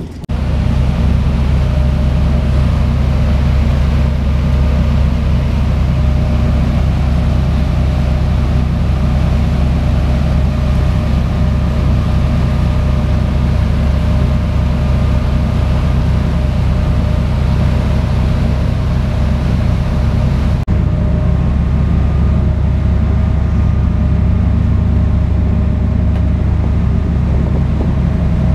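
Drift fishing boat's engines running steadily under way: a loud, constant low drone with a faint steady whine above it.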